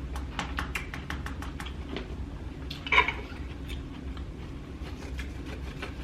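Close-miked eating sounds: chewing with wet mouth clicks and smacks, quick at first and then sparser, with one louder smack about three seconds in.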